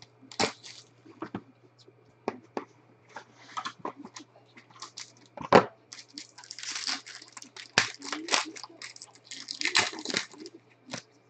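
Foil trading-card pack wrapper crinkling and tearing as it is handled and opened by hand, in irregular bursts that grow denser in the second half. A sharp knock about halfway through is the loudest sound.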